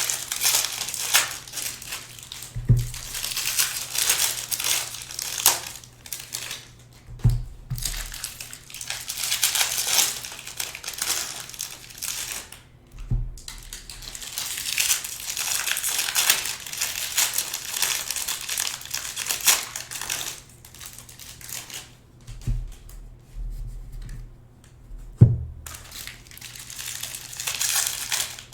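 Trading card pack wrappers crinkling and crumpling as packs are torn open and cards handled, in rustling spells with short gaps, with a few soft low thuds as things are set down on the table.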